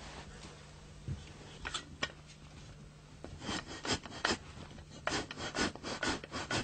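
A stiff animal hide being rubbed and worked by hand against a wooden frame during hand tanning: rasping strokes, a few scattered at first, then a steady run of about two or three a second from halfway through.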